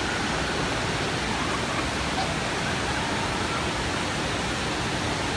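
Fountain with a tall central jet and a ring of small jets splashing into its basin: a steady rush of falling water.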